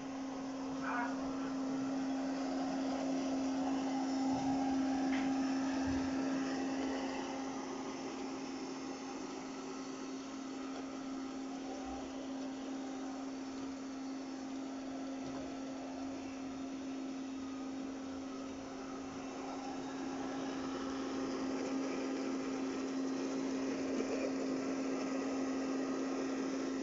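ILIFE V55 robot vacuum cleaner running: a steady motor hum with a whirring hiss over it, growing louder and softer as it moves about.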